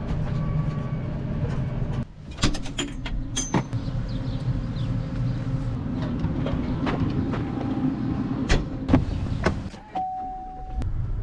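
Vehicle engine running steadily, heard from inside the cab, with several sharp clicks and knocks and a short steady tone near the end.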